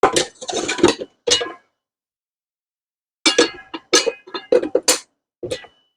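Metal tools and saw parts clinking and rattling in two short flurries, with a light metallic ring, as the blade and flange are worked onto the concrete saw's arbor.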